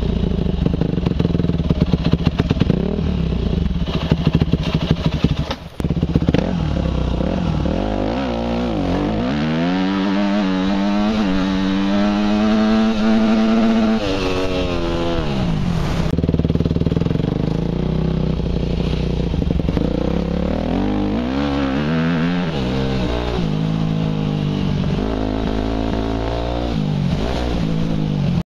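Dirt bike engine running while being ridden, its pitch climbing and holding a third of the way in, dropping near the middle, then rising and falling several times through the second half as the throttle opens and closes. The sound cuts off suddenly at the very end.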